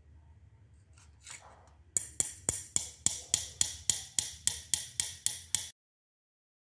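A run of sharp, evenly spaced mechanical ticks, about four a second, starting about two seconds in and lasting nearly four seconds before the sound cuts off abruptly.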